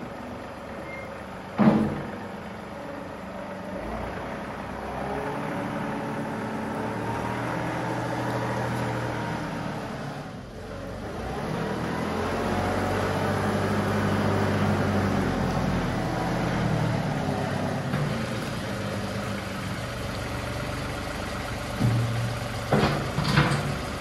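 John Deere 2038R compact tractor's three-cylinder diesel engine running, its speed rising and falling as it works. A sharp knock comes about two seconds in, and a few more come near the end.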